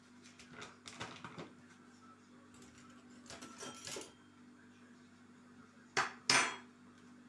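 A paper bag rustling and crinkling as its top is folded shut and it is stood on a table, then a metal spoon clacks down onto the tabletop twice about six seconds in.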